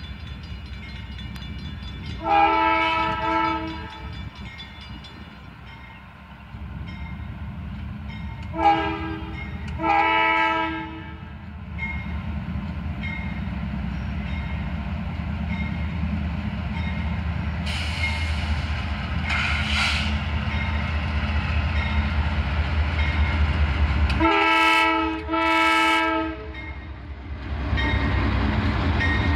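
Norfolk Southern diesel locomotive sounding its multi-note horn in five blasts: one long blast a couple of seconds in, a short and a long blast about a third of the way through, and two short blasts near the end. Under the horn, the engine's low rumble grows louder as the locomotive approaches and passes.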